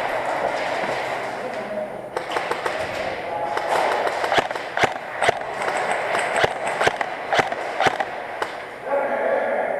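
Indoor airsoft gunfire: irregular sharp cracks, about two a second, starting about two seconds in, over a steady noisy background.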